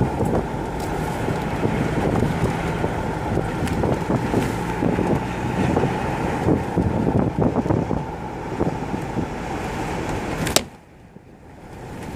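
A road vehicle driving, heard from on board, a steady road-and-engine noise with frequent short knocks and rattles from the rough mountain road. About ten and a half seconds in there is a sharp click and the sound suddenly drops away to much quieter.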